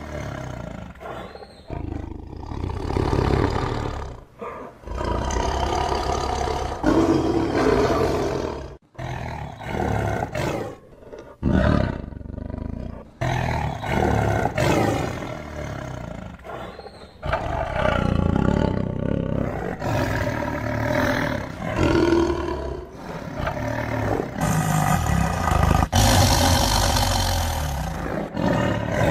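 A tiger roaring again and again: a string of separate roars, each one to a few seconds long, some cutting off suddenly.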